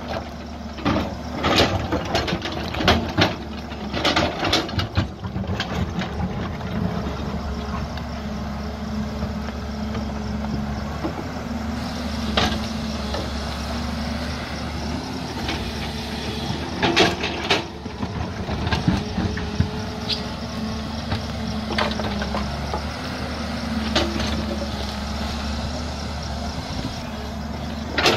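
JCB tracked excavator's diesel engine running steadily under load as its bucket digs into a rocky hillside. Sharp clanks and knocks of the bucket striking earth and stones come thick and fast for the first several seconds, then now and then a single knock.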